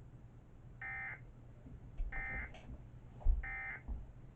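Three short bursts of Emergency Alert System end-of-message data tones (the SAME digital 'NNNN' code), each under half a second and about a second apart, closing the relayed flash flood warning. A dull low thump falls a little after three seconds in, over a steady low hum.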